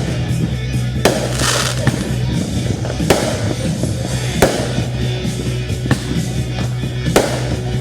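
Fireworks bursting over music, with four sharp bangs about one to three seconds apart. The first is followed by a brief crackle.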